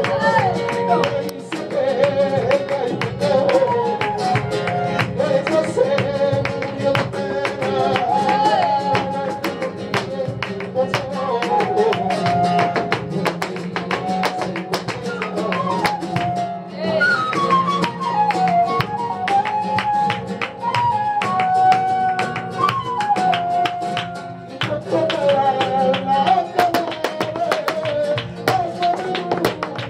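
Live flamenco: a singer's long sliding phrases over guitar, with many sharp percussive taps from the dancer's footwork on the floor.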